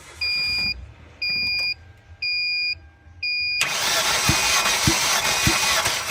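An electronic beep repeats about once a second, then about three and a half seconds in the Hyundai Sonata's 3.3-litre V6 is cranked over by its starter motor without firing, a loud steady whir with a few even pulses, during a compression test of cylinder 1.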